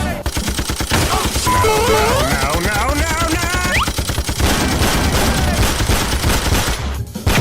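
Rapid machine-gun fire sound effect: a dense, unbroken string of shots. Stepped electronic tones rise and fall over it for a couple of seconds, starting about one and a half seconds in.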